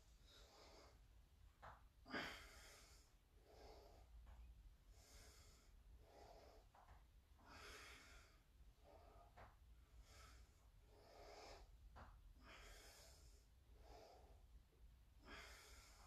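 A man's faint, rhythmic breathing: a hard breath about every second with each rep of jackknife sit-ups, with one louder breath about two seconds in.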